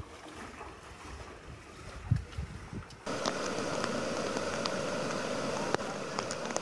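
Low wind buffeting on a phone microphone over a flooded street. Then, suddenly about three seconds in, a steady rushing of fast-flowing floodwater, with scattered sharp clicks.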